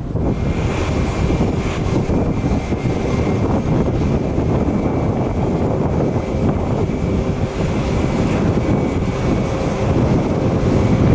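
Jet airliner engines running loud and steady: a dense rush with a steady high whine over it.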